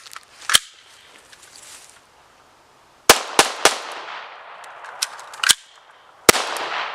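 PPS-43C firing Soviet surplus 7.62x25 Tokarev ammunition: about six sharp shots at uneven intervals. There is one shot early, then three quick shots about three seconds in, then one more and a last loud shot near the end, each trailed by echo.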